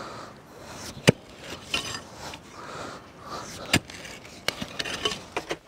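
Pickaxe striking hard, stony red soil in a pit: two sharp blows about two and a half seconds apart, then a quick run of lighter knocks near the end.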